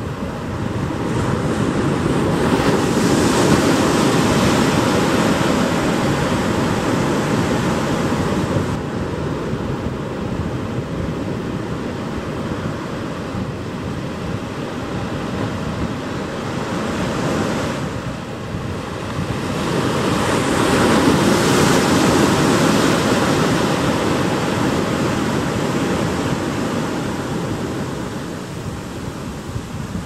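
Ocean surf breaking and washing over rocks, a steady rushing wash that swells twice, once a few seconds in and again about twenty seconds in, as bigger waves crash.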